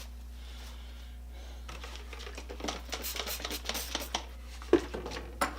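Small hard parts being handled on a workbench: a quick run of clicks and scrapes, then two sharp knocks near the end as something is set down.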